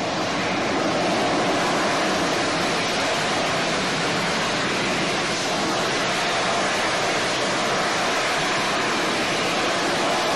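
AV-8B Harrier's Pegasus turbofan running at high power in a hover as the jet lets down for a vertical landing: a loud, steady jet roar that holds even throughout.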